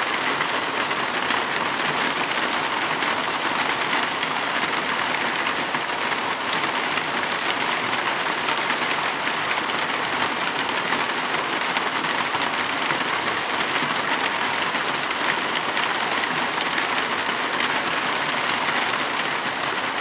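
Heavy rain pouring down steadily during a thunderstorm, an even, unbroken hiss of rain.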